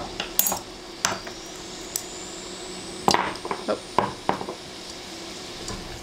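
A metal teaspoon clinking against a small glass spice jar while scooping out cumin, a few separate sharp clicks. About three seconds in comes a quick cluster of knocks and clinks as the glass jars are handled and set down on a wooden table.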